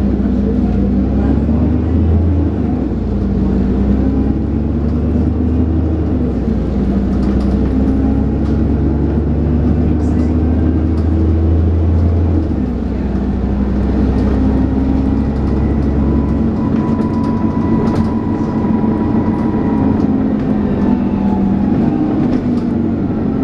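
Dennis Trident 2 double-decker bus engine pulling hard, heard from on board, with the whooshing 'hoover' intake sound. The deep engine note drops twice, about twelve and sixteen seconds in, and a faint whine rises and falls in between.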